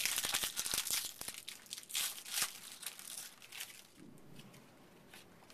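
Crinkling of a foil trading-card pack wrapper being handled and opened, a dense run of crackles for the first few seconds that thins out to a faint rustle.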